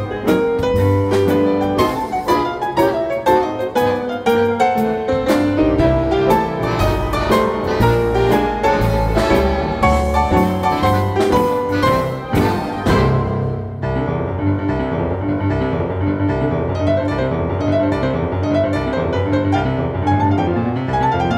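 Instrumental piano music with no singing: full chords and runs over low bass notes. About fourteen seconds in the sound changes abruptly to a duller-toned passage.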